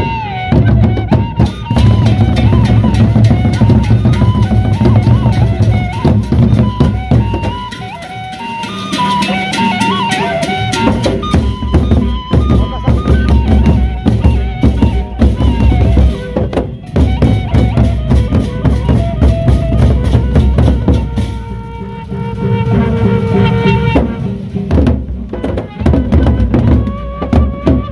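Gendang beleq ensemble: large double-headed barrel drums beaten with sticks in fast, dense interlocking rhythms, with handheld cymbals clashing and a pitched melody line sounding over it at times. The drumming eases briefly about eight seconds in, then drives on.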